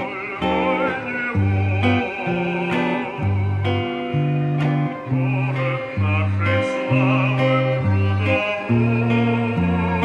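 Black single-cutaway electric guitar picked in a steady tune, with low bass notes changing about twice a second under a melody line.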